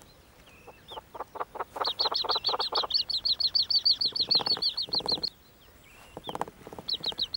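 Yellow-billed hornbill chicks squeaking in the nest hole, a fast run of high squeaks at about six a second, begging for food. A lower series of rapid notes comes with them. The calls stop about five seconds in and start again near the end.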